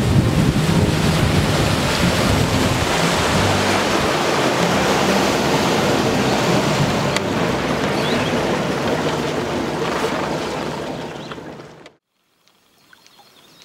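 Motorboat under way: a steady rush of wind on the microphone and water against the hull over a low engine drone. It fades out about twelve seconds in.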